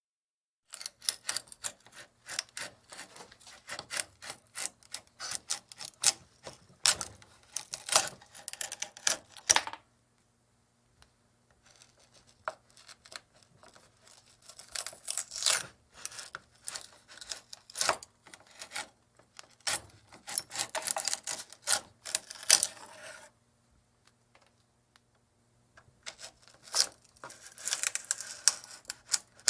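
Hand chisel cutting into wood: quick runs of short scraping strokes and taps as the blade shaves and pares. The runs come in three spells, with pauses of a second or two about ten seconds in and again around twenty-four seconds. A faint steady low hum lies underneath.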